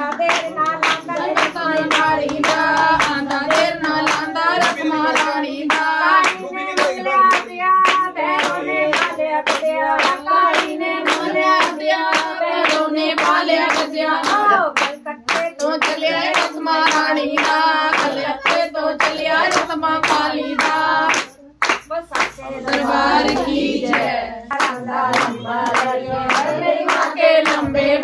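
Devotional singing to the goddess by voices in chorus, kept in time by steady hand clapping at about two claps a second.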